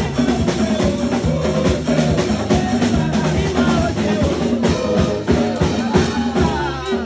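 Upbeat church praise music: a drum kit keeping a steady beat over bass, with voices singing.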